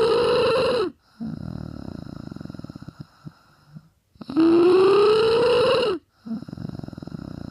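A person snoring very loudly in a slow cycle: a long snore with a rising, tone-like pitch ends about a second in, and another runs from about four to six seconds in. After each comes a quieter, fluttering rattle of breath.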